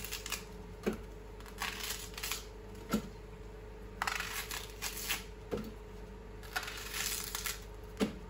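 Chunks of leek dropped one at a time into a Thermomix's stainless-steel mixing bowl, each landing with a short knock, four times, with rustling of the leek being handled between drops.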